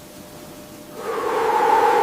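A hoarse, voice-like call starting about a second in and lasting about a second and a half, over a steady low background.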